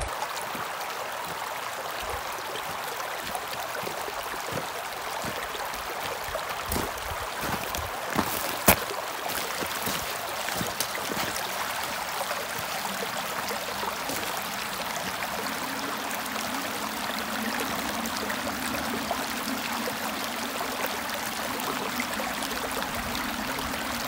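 Shallow mountain stream running steadily over a rocky gravel bed. A few sharp clicks of stones knock together underfoot, the loudest about nine seconds in.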